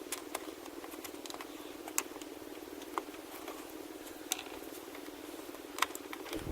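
Scattered small clicks and snaps of plastic trim retainers being pried up and popped out on a Jeep JK's grille surround, over a steady hiss, with the sharpest clicks about two seconds in and near the end.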